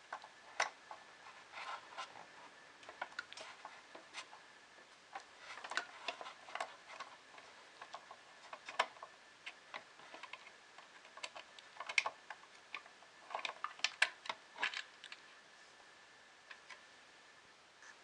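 Irregular light clicks and taps, some in quick clusters, from hand tools and small parts being handled while a panel is taken off a kit-built 3D printer. A faint steady high tone lies underneath and stops near the end.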